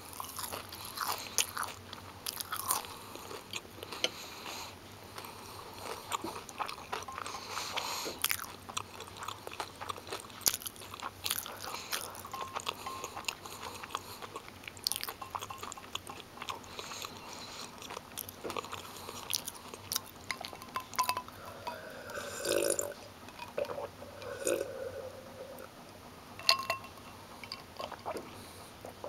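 Close-up chewing of a mouthful of crispy breaded fish stick: many small sharp crunches, coming thick and fast at first and thinning out over the last several seconds.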